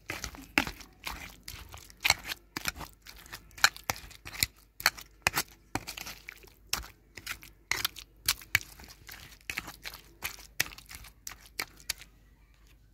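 Eggplant, onion and green chilli being mashed in a metal bowl with a hand-held utensil: repeated wet squishing strokes and scrapes against the bowl, irregular at about two or three a second, stopping near the end.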